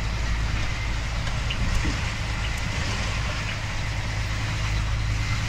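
Tractor-trailer truck's diesel engine running steadily, a constant low drone with road and cab noise.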